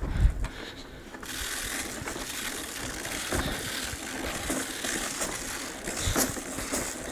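Scotts Elite broadcast spreader pushed across a lawn: its wheel-driven gearing clicks and rattles, and from about a second in a steady hiss of elemental sulfur granules flung from the spinning rotor.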